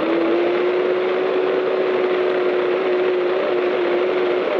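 Can-Am Maverick X3 side-by-side's turbocharged three-cylinder engine running at high, steady revs, its pitch rising a little at the start and then holding level, over road and wind noise in the open cockpit.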